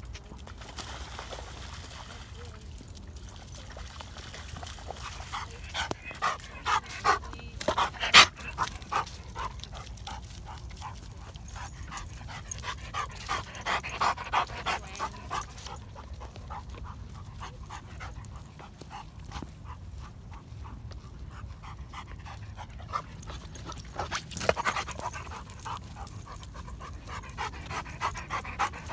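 Black Labrador retriever panting close to the microphone, in quick rhythmic puffs that come and go in several bouts. A single sharp click about eight seconds in.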